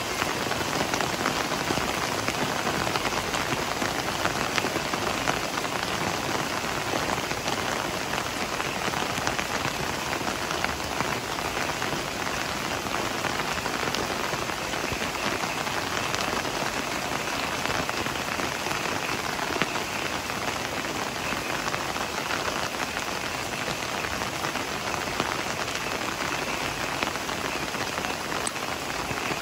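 Heavy rain falling steadily on leaves: a dense, even hiss with many small drop impacts.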